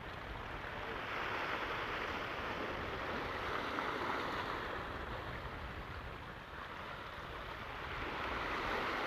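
Ocean surf washing onto a rocky shoreline, a steady rush that swells and eases as the waves come in.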